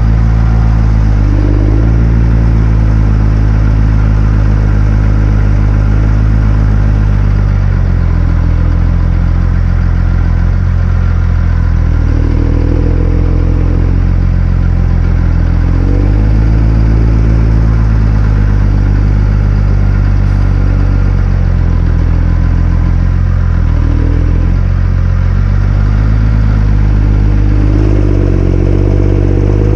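Tractor engine running steadily while ploughing. Its pitch rises briefly around 12 and 16 seconds in and climbs near the end.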